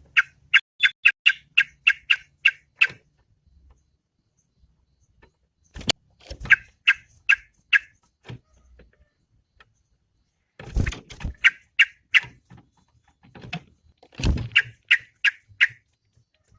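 Yellow-vented bulbul (trucukan) calling in bouts of rapid, sharp repeated notes, about four a second, the longest bout first and the later ones shorter. Several knocks or thumps fall between the bouts.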